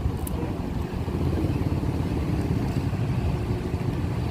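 Steady low rumble of a running vehicle engine with road noise.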